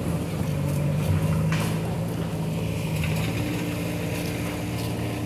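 Steady low hum of a running engine, holding an even pitch.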